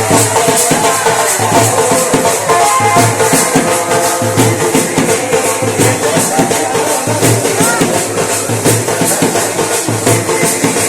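Indian wedding band (band baaja) playing loudly: a melody line over a fast, steady beat of drums and jingling cymbal or shaker strokes.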